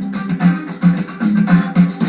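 Guitar music played back through a television's built-in speakers, with a steady rhythm of strong low notes and almost no deep bass.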